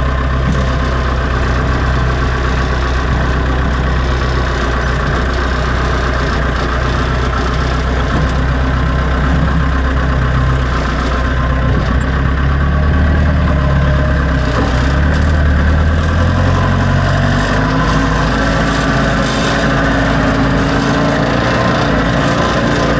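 Backhoe engine running steadily. About two-thirds of the way through it revs up a little, and a higher steady tone joins near the end.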